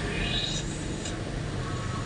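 Toyota Vios four-cylinder engine idling with a steady low hum, with faint voices or music in the background.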